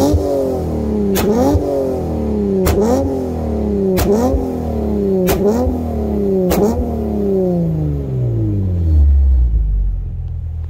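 Nissan 350Z's 3.5-litre V6 running through an Invidia Gemini dual exhaust, blipped six times in quick succession about every second and a quarter, each rev dropping straight back off. After the last blip the revs fall slowly back to a steady idle near the end.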